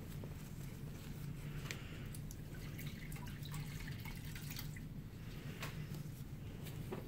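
Water dripping and trickling into a plastic basin as a washcloth is wetted and wrung out, in scattered small drips over a steady low hum.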